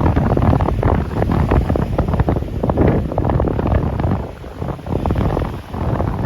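Strong wind buffeting the microphone in loud, irregular gusts, easing slightly about four seconds in.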